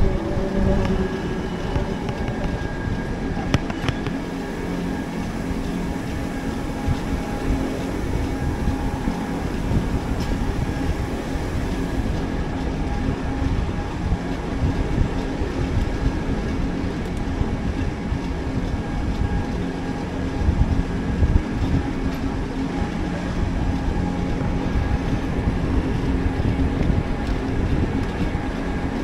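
Mountain railway train running downhill, heard from on board: a steady rumble of wheels on the track, with a faint steady whine.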